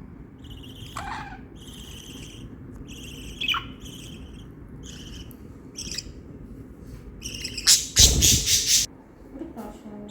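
Budgerigars chirping and chattering in a string of short, high chirps and trills, with one louder, harsh burst about eight seconds in.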